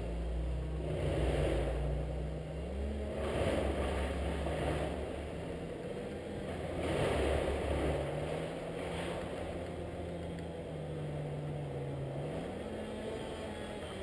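A motor engine running steadily, its pitch slowly rising and falling a few times, with a low rumble that eases about halfway through.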